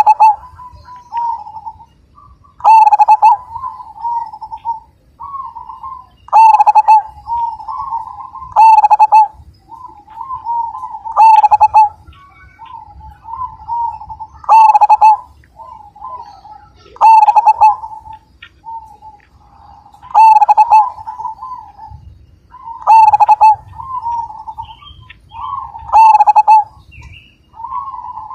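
Zebra dove (perkutut) singing its cooing song: repeated phrases of soft rolling coos, each punctuated by a loud accented note about every three seconds.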